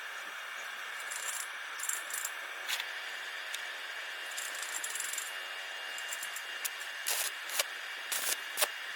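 Light metallic clinks and rattles of steel square tube being handled, with several sharp clicks near the end, over a steady hiss.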